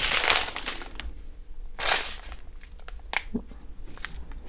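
Small plastic bags of diamond painting drills crinkling as they are handled, in a few short rustles with some light clicks between.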